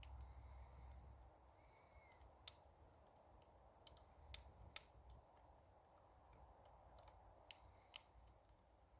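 Faint, sparse pops and snaps from a freshly lit brush pile of branches starting to burn, about half a dozen sharp cracks at irregular intervals. A low rumble under them fades after about a second.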